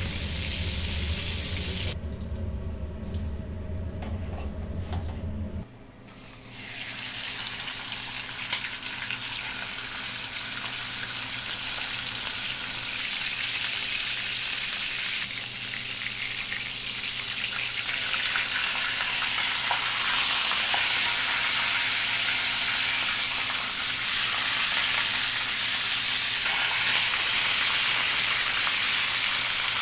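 A large piece of beef sirloin searing in hot oil in a stainless steel frying pan, sizzling steadily, the sizzle growing louder in the second half. For the first six seconds a low steady hum sits under it, then stops suddenly.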